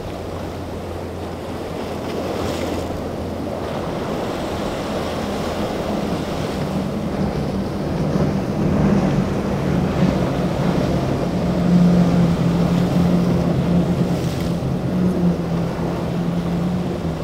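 Outboard motors on center-console boats running at speed through rough inlet water, a steady low engine drone mixed with waves breaking and wind rumbling on the microphone. The engine drone grows louder from about halfway through.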